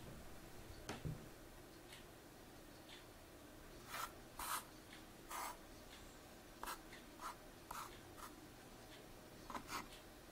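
Faint, irregular short scrapes and clicks of jigsaw puzzle pieces being slid and picked up on a wooden table, about a dozen small sounds spread over the second half.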